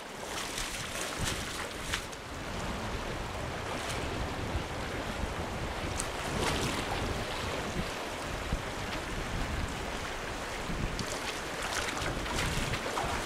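Shallow stream running over stones, with gusts of wind rumbling on the microphone.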